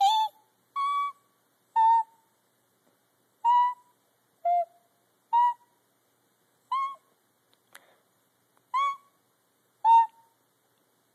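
A series of nine short, high-pitched squeaks, each a clear whistle-like tone with a slight bend in pitch, coming about once a second at uneven intervals.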